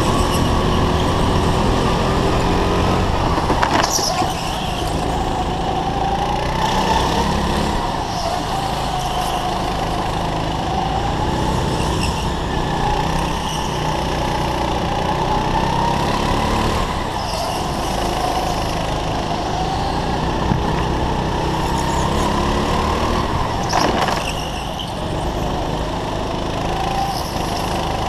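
Kart engine running hard from the driver's seat, its pitch rising and falling as the kart accelerates and lifts through the laps, with two sharp knocks.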